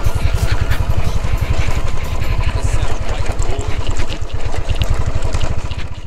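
Motorcycle engine running while the bike is ridden along a rough dirt track, with a rapid, even low exhaust beat.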